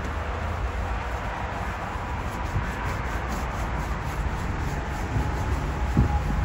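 A cloth rag rubbing and scrubbing across the face of a metal road sign, over a steady low rumble, with a couple of thumps near the end.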